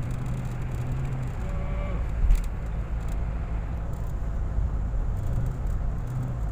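Car cabin noise while driving: a steady low rumble of engine and tyres on the road. There is a single sharp knock about two seconds in.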